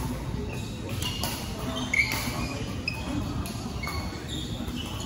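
Badminton hall noise between rallies: short squeaks of court shoes on the floor, the brightest about two seconds in, with a few sharp hits from play on other courts, echoing in the large hall.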